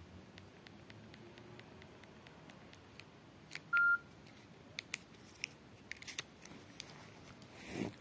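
Nokia N95 keys clicking under the thumb as its menus are worked, with a single short electronic beep from the phone about four seconds in, as a 'SIM card registration failed' info note comes up. Near the end, a soft rustle and thud as the phone is set down on fabric.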